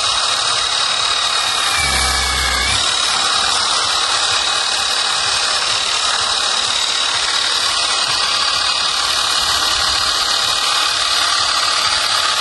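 Cordless battery jet washer spraying a steady hiss of water onto a motorcycle, its pump motor giving a steady high whine. There is a brief low rumble about two seconds in.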